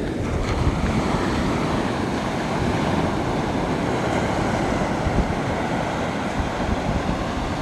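Ocean surf on an incoming tide, washing up onto the sand as a steady wash of noise.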